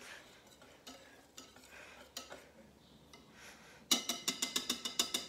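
Pancake batter being stirred by hand in a ceramic bowl: soft, faint scraping at first. About four seconds in, it breaks into a fast run of ringing clinks, about seven a second, as the mixing utensil beats against the side of the bowl.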